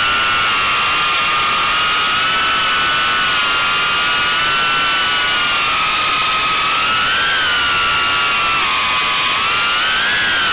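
Brushless motors and ducted props of a 3-inch Armattan Gecko cinewhoop quadcopter whining in flight, heard from on board: several close pitches that waver up and down together with the throttle, rising briefly about seven seconds in and again near the end.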